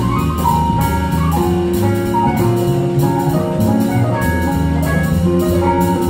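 Live instrumental jazz quartet playing: a bowed cello holds long melody notes over keyboard, plucked upright bass and a drum kit keeping a steady beat.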